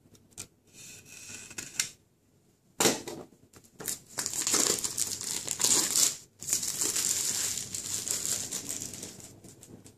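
Plastic shrink-wrap on a phone box being slit with a utility knife, then pulled off and crinkled: a sharp click about three seconds in, followed by several seconds of dense cellophane crinkling, the loudest part, that dies away near the end.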